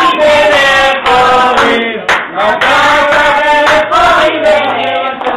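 Group of children singing a Passover seder song together, with some hand-clapping.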